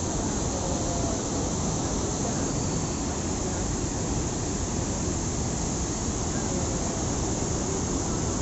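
Floodwater pouring over a river anaicut (masonry weir): a steady, unbroken rush of water.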